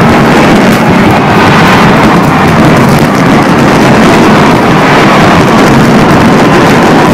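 Dense barrage of fireworks explosions blending into one loud, continuous rumble, with no single bang standing out.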